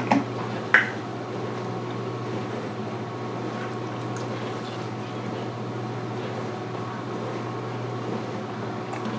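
Coffee poured from a glass carafe into a tall plastic cup, a steady stream of liquid running under a constant low hum. Two sharp knocks come within the first second, the second the louder.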